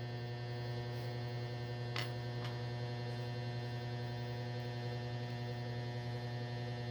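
Steady electrical mains hum: a constant low drone with a stack of even overtones, with two faint ticks about two seconds in.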